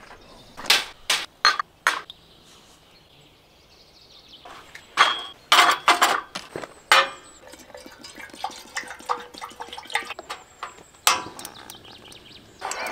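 Clinks and knocks of mugs, spoons and containers as coffee is being made: a few sharp knocks in the first two seconds, a cluster of louder clinks about five to seven seconds in, faint rattling after that, and one more knock near the end.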